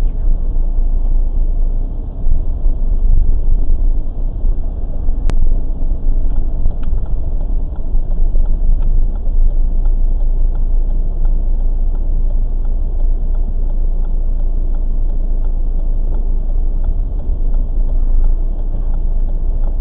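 Steady low rumble of a car's engine and running gear heard inside the cabin by a dashcam. There is one sharp click about five seconds in, and a faint, regular ticking about one and a half times a second from around six seconds on.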